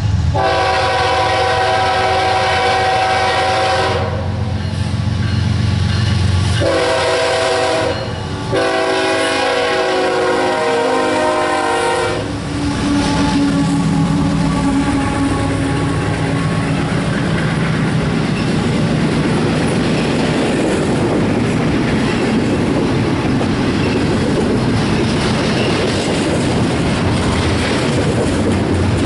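Lead diesel locomotive's air horn sounding a long blast, a short one and a long one over the first twelve seconds, with the GE locomotives' diesel engines working hard as the train picks up speed. The locomotives then pass and the double-stack intermodal well cars roll by with a steady clatter of wheels on rail.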